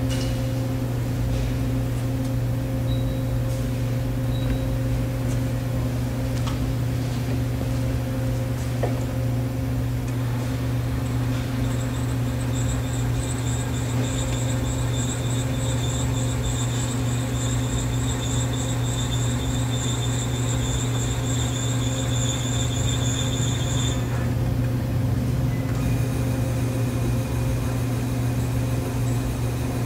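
Bridgeport Series I CNC vertical milling machine running, its table traversing on the axis drives: a steady hum. A high, steady whine joins about twelve seconds in and cuts off after about twelve seconds.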